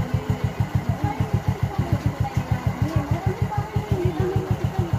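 Yamaha Mio Soulty scooter's single-cylinder four-stroke engine idling with an even, rapid putter, its carburetor freshly tuned at the air (minor) screw, a tuning said to take away its vibration.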